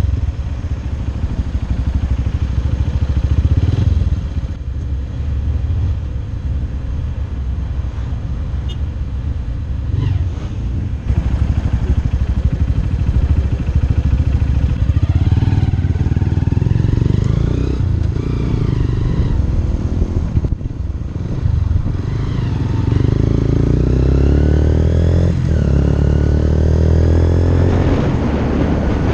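Motorcycle engine running through city traffic, pulling away in the second half with several rising revs as it goes up through the gears. Wind noise rises near the end as speed builds.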